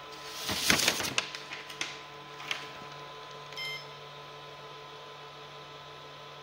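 A sheet of paper pulled off the Tronxy X5SA's print bed with a loud rustle, followed by a few light clicks and, about three and a half seconds in, a single short electronic beep from the printer's control panel. A low steady hum runs underneath.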